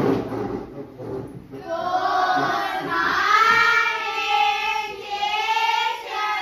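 A class of young children chanting a greeting to the teacher in unison, in long drawn-out sing-song phrases that begin about a second and a half in.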